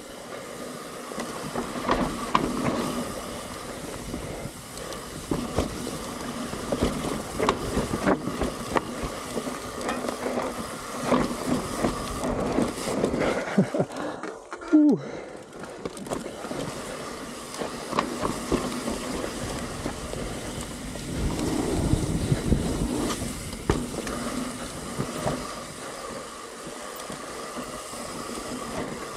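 Mountain bike riding down a dirt trail: a steady rush of tyre and wind noise with constant small clicks and rattles from the bike over rough ground. About halfway through it goes briefly quieter, then a sharp thump.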